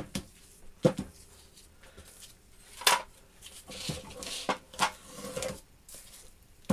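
Small homemade steel machine vise being handled and shifted on a workbench: several separate metal knocks and clinks, with a short scrape partway through.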